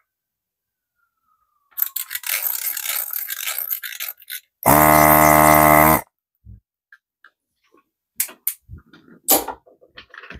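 Handheld desoldering gun working on a circuit board: about two seconds of hissing and scratching, then its vacuum pump buzzes loudly for just over a second as it draws solder off a capacitor lead. A few clicks and knocks of parts being handled near the end.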